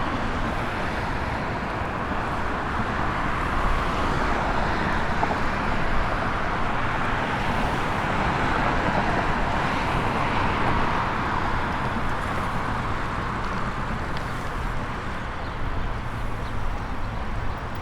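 Steady hum of road traffic, swelling through the middle as vehicles pass, over a low rumble.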